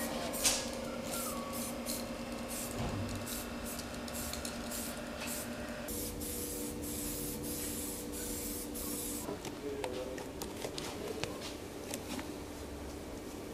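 Aerosol spray-paint can hissing onto an engine block in short strokes, then in one longer spray about six seconds in. Near the end come light ticks and crackles as masking tape is peeled off the block, over a faint steady shop hum.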